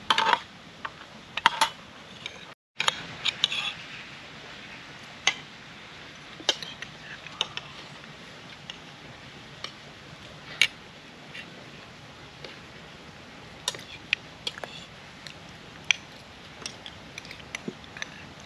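Irregular light clinks and clicks of metal utensils against dishes, over a steady background hiss.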